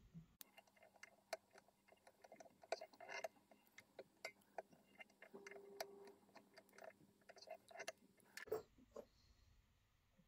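Faint, irregular clicks and ticks of a metal whip-finish tool and tying thread as a double whip finish is tied at the head of a streamer fly.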